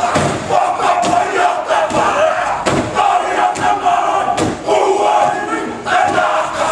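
Kapa haka group performing a haka: many voices shouting and chanting in unison, loud throughout, with sharp beats from stamping and slapping every second or so.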